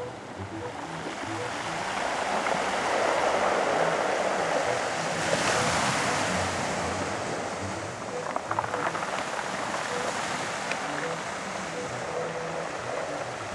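Sea surf washing and breaking against a rocky shore: a continuous rush of water that swells a few seconds in, with some brief crackles around the middle.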